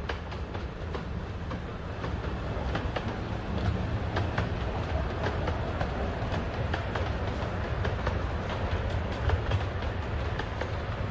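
Miniature 10¼-inch-gauge steam train running past on its narrow-gauge track: a steady rumble that grows louder about two seconds in as it draws near, with rapid clicking and clatter from the wheels on the rails.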